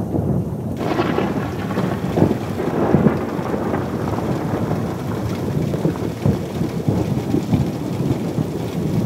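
Thunder rumbling continuously, with rain falling; a higher hiss of rain comes in suddenly about a second in.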